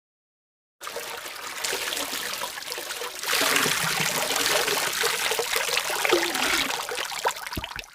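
Liquid pouring in a steady trickle that grows louder about three seconds in, then thins out to a few drips near the end.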